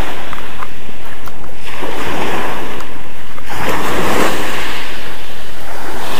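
Small waves washing up a pebble beach, the surf swelling and easing every couple of seconds.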